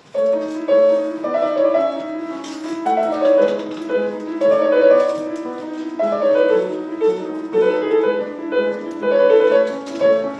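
Grand piano played solo, a busy passage of many short notes that starts abruptly.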